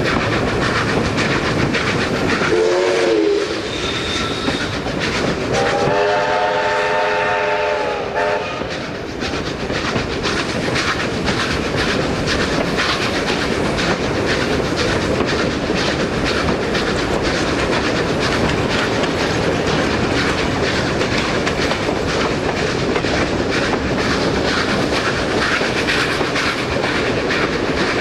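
Steam-hauled train heard from an open carriage window behind New South Wales Railways 32 class and 59 class steam locomotives: a short whistle toot about two and a half seconds in, then a longer whistle blast from about six to eight seconds in, over the steady rhythmic clatter of the locomotives working and the wheels on the rails.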